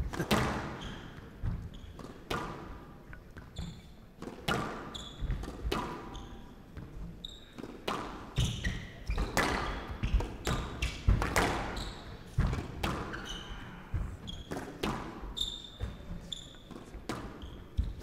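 A squash rally: the ball smacks off the rackets and the walls of a glass court in quick, irregular succession, each hit echoing in the hall. Short high squeaks of court shoes on the wooden floor come between the hits.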